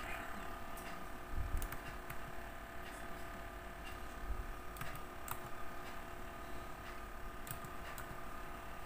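Faint, irregular clicks of a laptop's keys and mouse as a PIN is entered and submitted, over a steady low electrical hum, with a couple of soft low thumps about one and a half and four seconds in.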